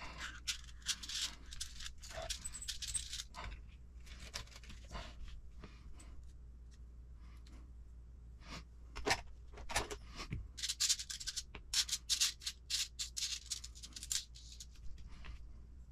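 Hands handling small RC kit parts: plastic suspension pieces and thin metal hinge pins and hardware clicking, tapping and rattling against each other and in a metal parts tray. The clicks and rattles come in two busy spells, near the start and again from about eleven to fourteen seconds in.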